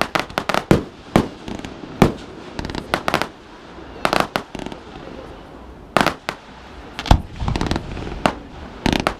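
Fireworks display going off: repeated sharp bangs and crackling bursts in quick clusters every second or so, with the loudest reports about two, six and seven seconds in.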